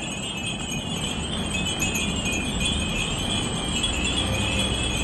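Dozens of Japanese glass wind-bells (fūrin) ringing together in the wind, a dense, continuous high tinkling of many overlapping chimes over a low rumble.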